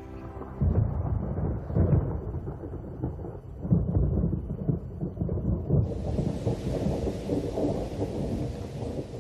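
Thunder rumbling in deep rolling peals from a tropical storm, with loud swells about one, two and four seconds in. About six seconds in, the hiss of heavy rain sets in under the continuing rumble.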